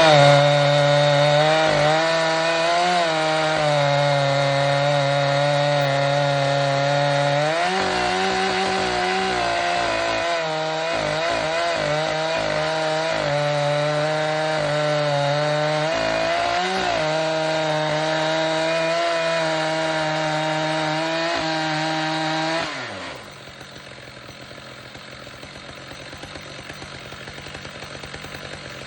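Chainsaw in an Alaskan chainsaw mill at full throttle, ripping through a large maple round, its pitch wavering and dipping a few times as the load changes. About 23 seconds in the throttle is let off and it drops to a quieter idle.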